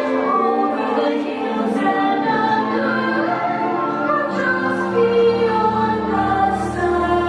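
Fireworks-show soundtrack music with a choir singing long held notes; a deep low tone comes in about four seconds in.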